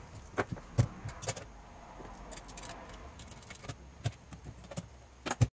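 Scattered light metallic clicks and clinks of a car radio's mounting brackets and screws being handled as the stereo is fitted into the dash.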